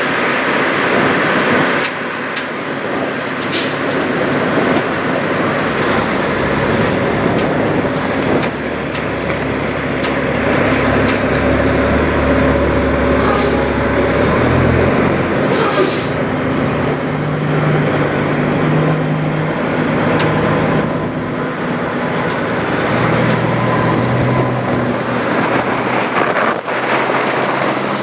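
Diesel semi-truck engines running, a low hum that shifts in pitch over a steady wash of traffic noise, with scattered light clicks and a short hiss about sixteen seconds in.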